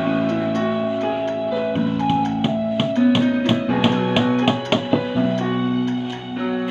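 Background music: held keyboard chords with quick plucked notes through the middle.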